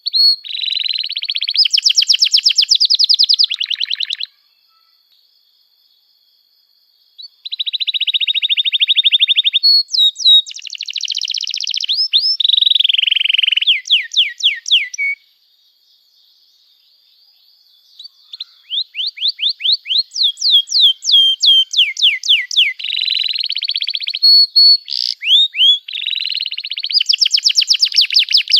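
Domestic canary singing long phrases of rapid trills, buzzy rolls and quick down-slurred whistled notes. The song breaks off twice for a few seconds, about 4 s in and again about 15 s in, then resumes.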